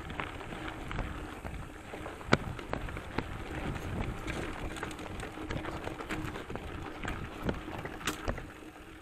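Mountain bike rolling down a dirt and gravel trail: a steady crunch of knobby tyres on loose ground, with scattered clicks and knocks as the bike rattles over bumps.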